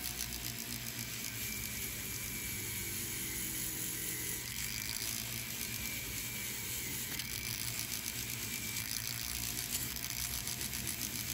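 Flex-shaft rotary tool running steadily with a 1-inch, 1,000-grit sanding disc on a foam pad, rasping against a sterling silver piece as it is sanded toward a polish.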